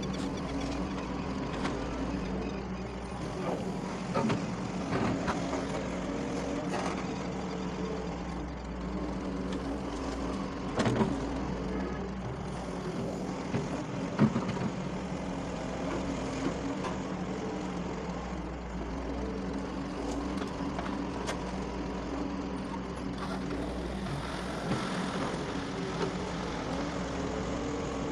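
Doosan DX140 excavator's diesel engine running steadily under load, with a few sharp knocks and clanks, the loudest about 11 and 14 seconds in.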